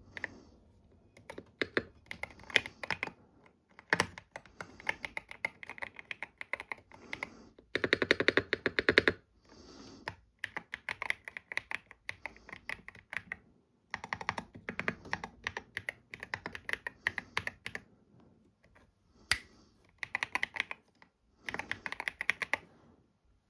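Hummingbird68 mechanical keyboard with linear switches being typed on in bursts of fast keystrokes, with short pauses between them. A dense, louder flurry of keys comes about eight seconds in, and a single sharp click comes near the end.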